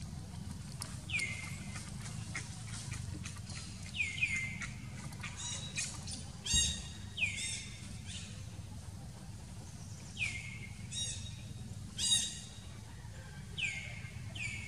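A bird calling over and over: a short call sliding down in pitch, every two to three seconds, with two louder, harsher calls in the middle, over a low steady background rumble.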